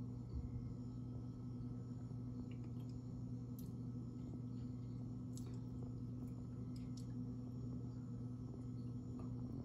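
Room tone: a low, steady hum, with a few faint light clicks about halfway through.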